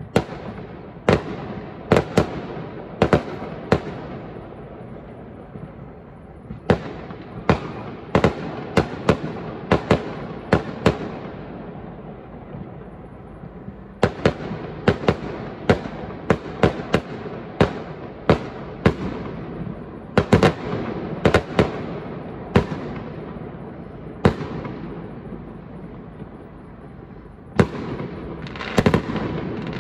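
Aerial fireworks bursting in volleys of sharp bangs, several a second, with pauses of a few seconds between volleys and a lingering rumble dying away after each. The bangs come thickest near the end.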